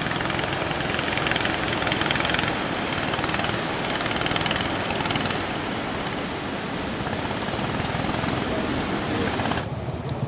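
Fishing boat engine running steadily under a loud rushing noise. The rushing hiss drops away just before the end, leaving the engine's low hum clearer.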